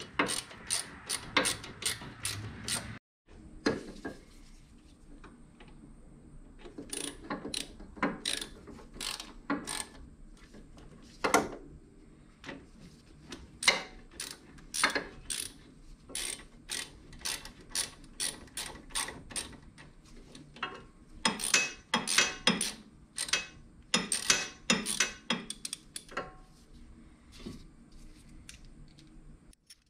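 Hand ratchet wrench clicking in quick irregular runs with pauses between, as the bearing hub bolts are run in. The sound drops out briefly about three seconds in.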